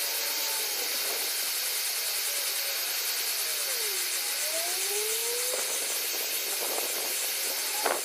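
Bernzomatic hand torch burning with a steady hissing flame, heating a steel timing-chain crank sprocket so it will expand to fit the crankshaft. A short sharp knock just before the end.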